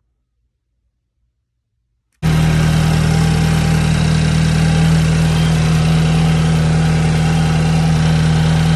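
About two seconds of silence, then a BMW F30 328i's N26 turbocharged 2.0-litre four-cylinder cuts in abruptly, idling steadily through an aftermarket CTS Turbo intake and FTP turbo inlet.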